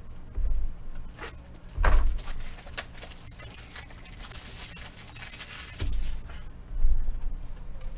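Trading card packs being opened and handled on a table: foil wrappers rustling and tearing, cards flicking and sliding, with a few dull thumps as things are set down.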